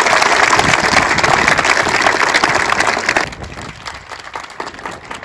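Crowd in outdoor stadium bleachers applauding, cut off abruptly about three seconds in, leaving a much quieter background.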